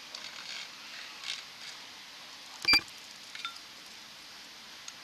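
A single short electronic beep about halfway through, the loudest thing here, over a steady low hiss with a few faint clicks.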